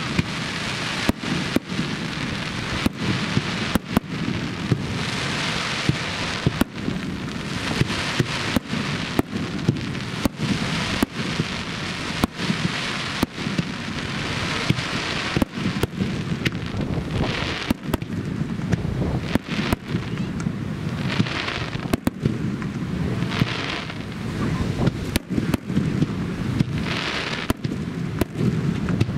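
Starmine fireworks barrage: aerial shells launching and bursting in rapid succession, with sharp bangs about twice a second. Underneath is a continuous rush of strong wind on the microphone.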